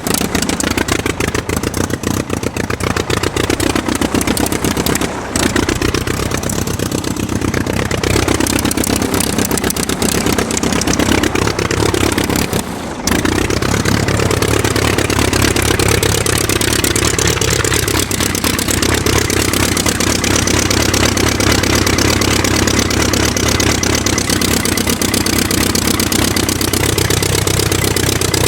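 Aircraft engine running steadily, its pitch wavering up and down as the revs shift, with two brief dips in level, at about five seconds and about thirteen seconds in.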